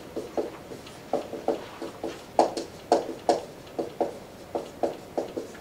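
Dry-erase marker writing block capitals on a whiteboard: a quick, uneven run of short taps and strokes that stops near the end.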